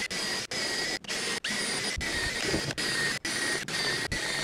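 Electric drill in a portable drill-guide stand running at steady speed, boring T-nut holes into StarBoard HDPE plastic sheet. It is a steady high whine that cuts out for a split second several times.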